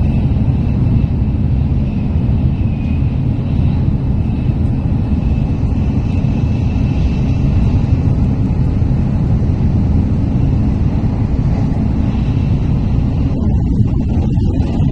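Tokaido Shinkansen train running at speed, heard inside the passenger car: a steady, even low rumble with a faint high whine above it.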